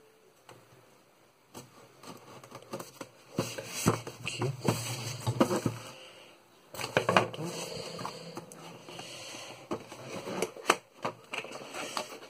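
Hands opening a cardboard product box, with irregular scraping, rustling and clicks of the packaging starting a little over a second in.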